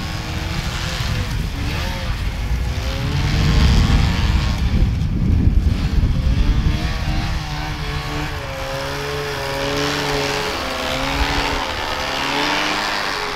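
Snowmobile engine revving up and down as the sled rides across the snow, its pitch rising and falling; loudest about four to six seconds in.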